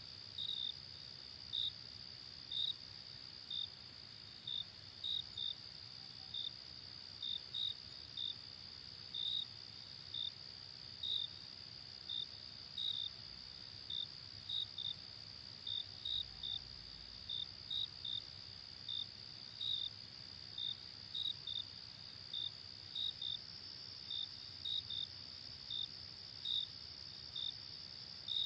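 Crickets chirping at night: short, evenly pitched chirps about twice a second, slightly irregular, over a steady high insect trill.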